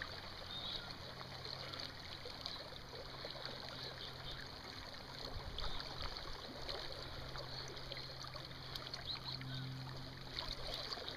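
Steady rush and ripple of river current around a wading angler, with light splashing from a hooked salmon thrashing at the surface.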